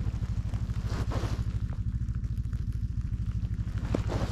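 An engine idling steadily: a low rumble with a fast, even pulse, with a few faint rustles and clicks over it.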